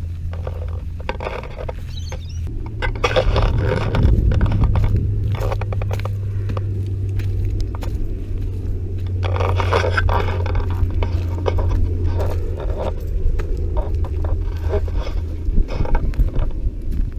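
Radio-controlled scale truck driving over grass and leaf litter: a steady low hum from its drivetrain, with scraping and crackling as grass and leaves brush against it, loudest about three and ten seconds in.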